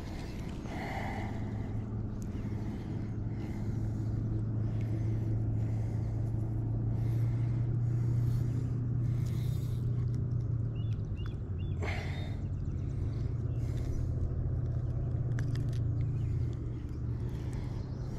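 Low, steady engine hum from a passing motor, swelling over the first few seconds and dropping away near the end.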